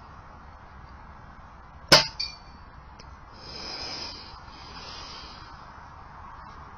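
A single sharp metallic clang with a brief ring about two seconds in, followed a moment later by a fainter knock.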